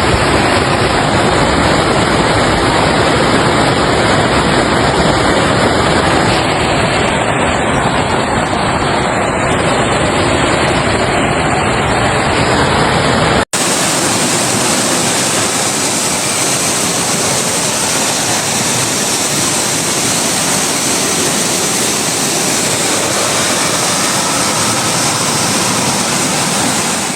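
Loud, steady rushing of floodwater, in two clips joined by an abrupt cut about halfway through; the second clip has less bass and a brighter hiss.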